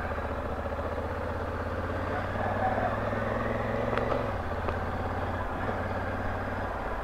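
Honda Africa Twin motorcycle engine running steadily while riding, under a rush of wind and road noise. Its note drops a little about four seconds in.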